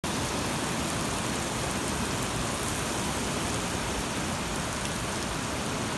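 Steady rain falling during a tornado-producing thunderstorm, an even hiss without change.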